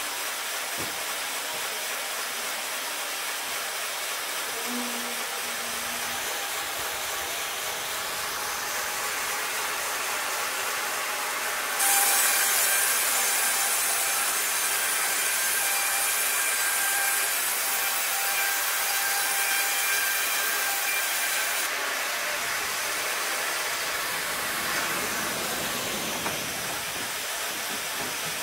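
Bongioanni Artiglio CGH 1000 log band saw cutting through a squared timber on its carriage: a loud sawing hiss with a faint steady whine starts suddenly about twelve seconds in and lasts about ten seconds. Before and after the cut, a steady hiss of the machinery running.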